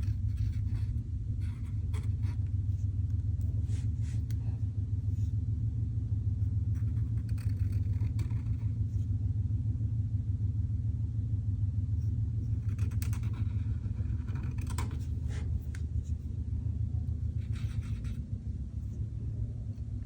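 A steady low rumble throughout, with short faint scratches of a pen drawing on paper every few seconds.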